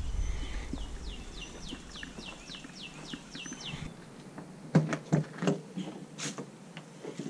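A songbird sings a run of about a dozen quick, falling whistled notes, about three a second. Then come a few sharp clicks and knocks as the latches of an RV's outside storage compartment door are worked open.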